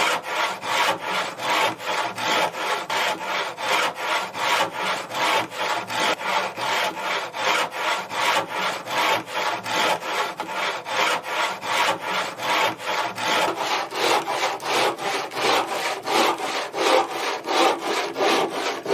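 Wooden frame saw (bow saw) cutting through a wooden board by hand, in steady back-and-forth strokes of about three a second.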